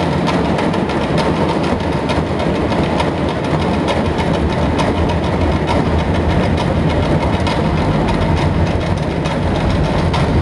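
Many small hand drums, carried on straps, beaten together by a marching troupe in a dense, continuous rumble of overlapping strokes.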